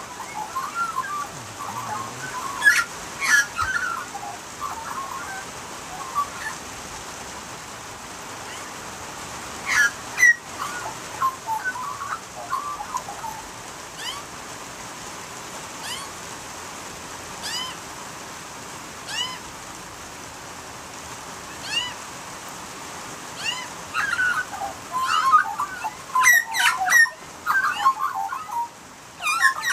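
Australian magpies calling in bursts of warbling, near the start, about a third of the way in and loudest near the end, with a thin high chirp repeated about once a second in the quieter middle stretch. A steady hiss of rain runs underneath, with a few sharp clicks.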